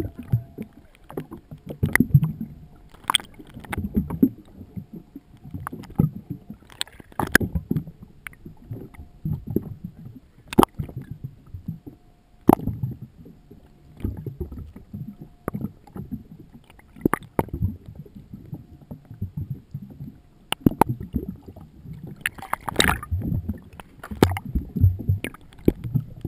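Water sloshing and slapping against a boat hull, heard through an underwater camera, with irregular low thumps and sharp knocks every second or two.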